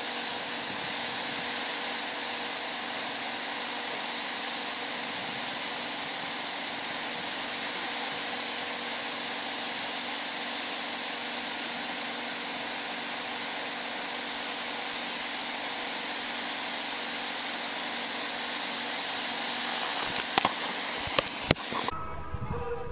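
Steady, even blower-like hiss with a faint steady hum, as from an air-moving machine running nonstop. There are a few sharp clicks near the end, then the hiss cuts off abruptly.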